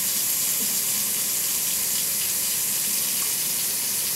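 Water running steadily from a newly installed Moen kitchen faucet into the sink, an even rush with no changes, left on to test the new faucet for leaks.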